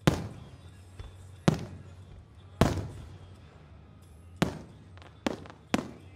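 Aerial firework shells bursting: six sharp booms at uneven intervals, each trailing off in an echo.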